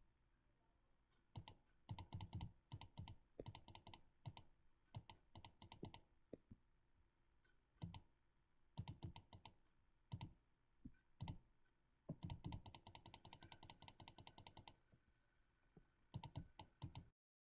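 Computer mouse clicking in quick runs of clicks with short pauses between them, faint; a longer unbroken run of clicking comes about twelve seconds in, and the sound cuts off abruptly near the end.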